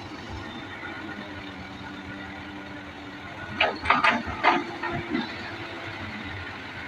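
Excavator diesel engine running steadily, with a burst of several loud, sharp cracks and knocks a little past the middle.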